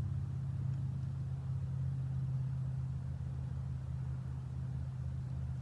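Steady low engine hum, holding one pitch; no shot is heard.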